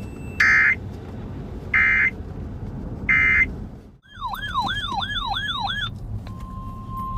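Emergency Alert System signalling over a hissy broadcast: three short bursts of screechy digital data tone about a second and a half apart, the SAME end-of-message code that closes a warning. After a brief dropout comes about two seconds of a warbling siren-like alert tone. Near the end a steady single attention tone starts, the weather radio alert tone that opens the next warning.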